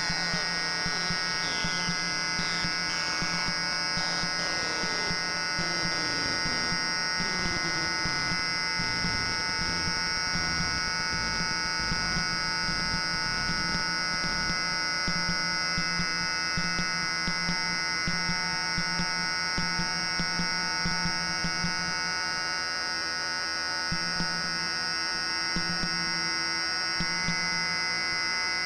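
Homemade square-wave synthesizers play a noise drone: a dense stack of steady buzzing tones. In roughly the first ten seconds several falling pitch sweeps slide down through it.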